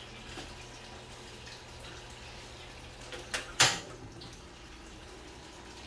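Portable gas stove being lit: two sharp clicks about three and a half seconds in, the second louder, as the knob-turn igniter sparks and the burner catches.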